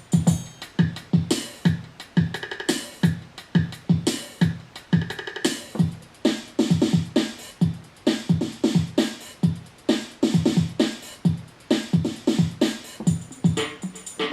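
Yamaha PSR-350 keyboard playing a dance-style auto-accompaniment: a drum-machine pattern with a steady beat of kick drum and hi-hats under a synth backing.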